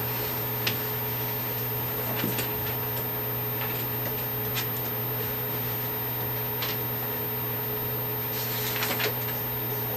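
Steady electrical or fan hum from room equipment, with a few faint clicks and light knocks scattered through it, a small cluster of them near the end.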